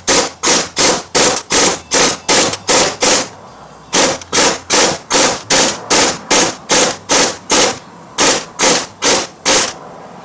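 Impact wrench hammering in short rapid pulses, about three or four a second, pausing once about three seconds in. It is driving the crankshaft bolt to press the harmonic balancer pulley onto the crankshaft of a Ford 3.5 V6.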